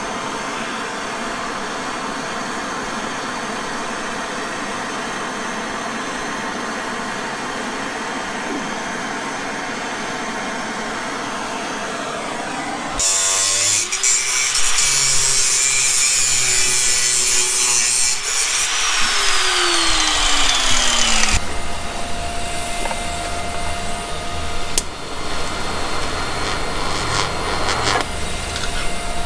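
A hand-held gas torch hissing steadily as it heats a steel rod for bending. About 13 seconds in, an angle grinder starts cutting the rod, spinning down with a falling pitch about 21 seconds in; then an electric welder buzzes steadily as it tacks the rod into a shifter.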